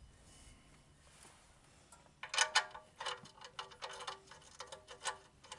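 Sharp metallic clicks and taps, about three a second, with a faint ring, starting about two seconds in: a wrench working at the truck's oil pan drain plug.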